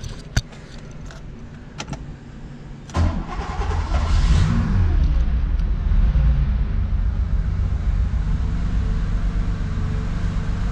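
A few key clicks, then about three seconds in the warm 1973.5 Porsche 911T's air-cooled 2.4-litre flat-six starts at once, revs up briefly and falls back into a steady idle.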